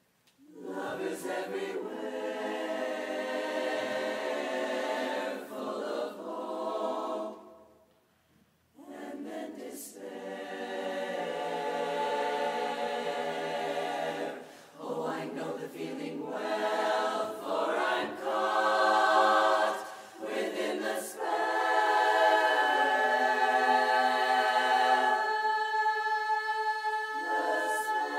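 Women's barbershop chorus singing a cappella in close four-part harmony, starting just under a second in. The chords come in phrases with a pause of about a second near the middle, and the singing grows louder toward the end.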